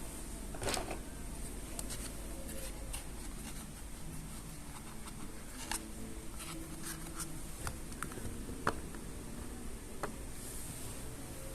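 Scattered light clicks and scratching of small plastic toy parts being handled, with a short scrape about a second in.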